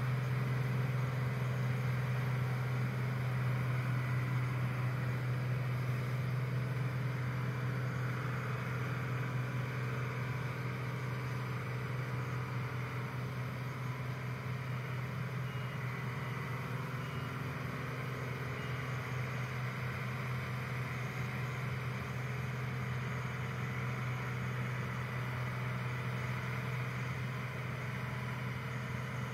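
Claas Dominator 58 combine harvester's diesel engine and threshing gear running steadily at a distance, a constant low drone that eases slightly after about ten seconds as the machine moves off.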